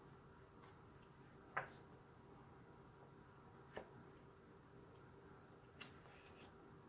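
Pages of a softcover coloring book being turned by hand: three short, faint paper ticks about two seconds apart over a quiet, steady room hum.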